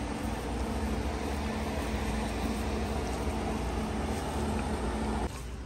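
Steady low mechanical hum with an even hiss over it, which drops away abruptly near the end.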